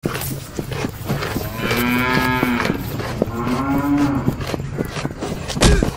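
Cattle mooing twice, two drawn-out calls of about a second each, the second rising slightly in pitch, over scattered light clicks; a heavy thump just before the end.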